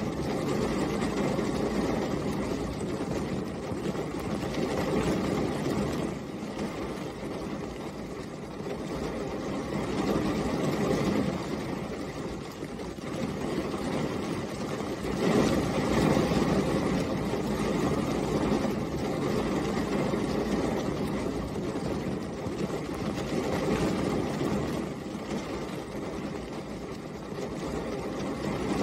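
Steady rain, a dense, deep-toned hiss that swells and eases in slow waves, loudest about halfway through.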